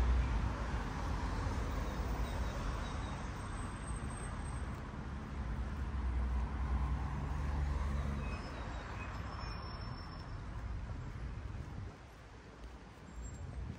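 Road traffic on a city avenue: a steady rumble of passing cars, heavier in the first half and dropping off about twelve seconds in.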